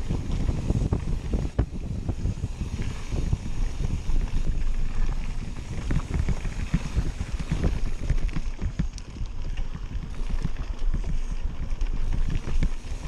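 Mountain bike running fast over rough dirt singletrack: wind buffets the microphone over a steady rumble of tyres on dirt and a constant stream of small knocks and rattles from the bike.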